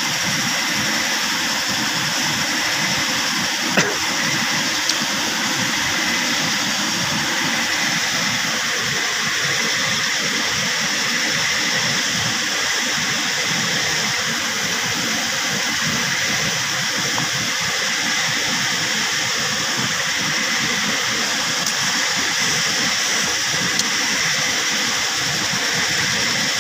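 Fast-flowing river rushing steadily, a constant hiss of water, with one brief sharp click about four seconds in.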